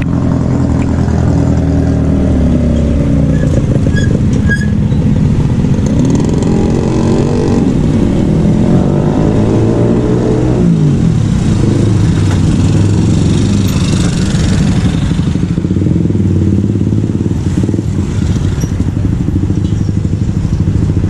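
Road traffic passing close by: motorcycle and car engines running as they drive past, with one engine note falling in pitch about ten seconds in.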